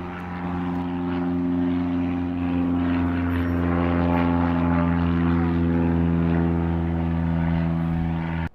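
Propeller airplane engine droning with a steady, even hum. It grows a little louder over the first couple of seconds, then cuts off abruptly near the end.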